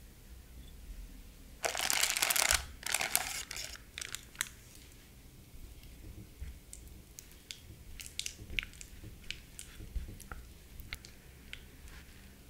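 Crisp dried banana pieces snapped and crumbled by hand, with loud crackly crunching about two seconds in and again a second later. Then a silicone spatula works softened butter in a glass bowl, with light scattered ticks and scrapes.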